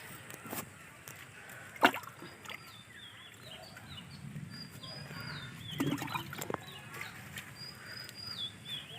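Small birds chirping and whistling faintly, short high calls with little drops in pitch, with a single sharp knock about two seconds in and another near six seconds.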